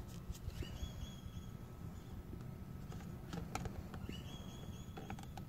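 Faint handling noise of a plastic steering-wheel switch and its wiring harness being worked by hand, with a few light clicks.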